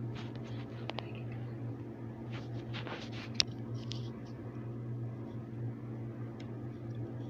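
Hands rubbing masala marinade into a whole raw chicken: faint wet squishing with a few small clicks, and one sharp click about three and a half seconds in, over a steady low hum.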